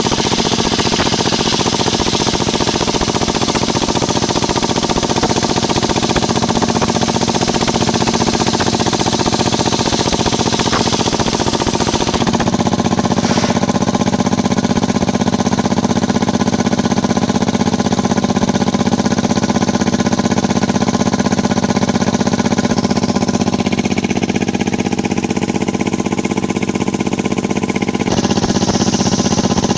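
Small engine-driven circular-saw sawmill running steadily, with the blade cutting waru wood into battens: a harsher cutting hiss for the first dozen seconds, easing to the engine's steady running around twelve seconds in and returning near the end.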